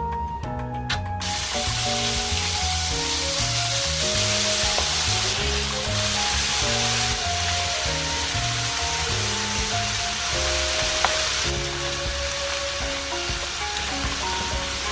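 Food sizzling in hot oil in a frying pan, starting suddenly about a second in and running steadily, under background music.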